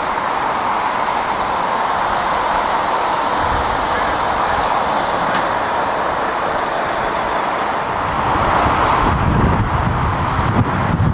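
Road traffic passing close by: a Volvo articulated lorry drives past with steady tyre and engine noise. A heavier, deeper lorry engine rumble builds in the last few seconds.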